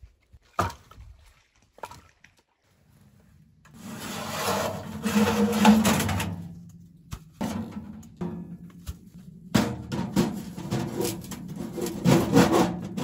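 Galvanized steel stovepipe sections being pushed and twisted together and fitted onto a small steel wood stove: long scraping metal-on-metal rubs, then a run of shorter scrapes and clanks. A single sharp knock comes about half a second in.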